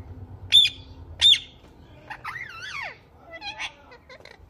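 Ringneck parrot calling: two loud, sharp shrieks about two-thirds of a second apart, followed by a wavering, rising-and-falling call and softer chatter.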